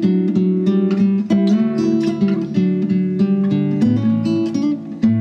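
Background music of a strummed and picked acoustic guitar playing a steady run of chords.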